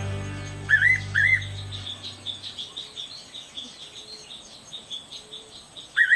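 Fairy pitta singing its loud two-note whistled song about a second in, then again right at the end. Each note rises and falls. Behind it a fast, high chirring runs steadily, and background music fades out in the first couple of seconds.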